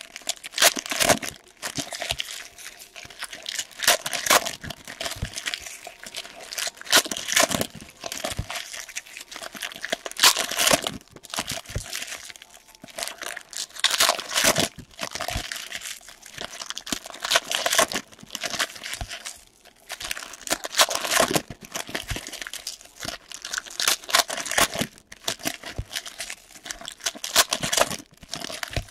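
Foil trading card pack wrappers crinkling and tearing as packs are ripped open by hand, in irregular bursts.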